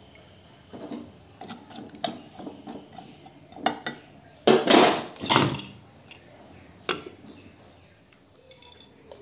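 Aluminium cooking pot being handled: scattered metal knocks and clicks, with two louder, longer clatters about halfway through.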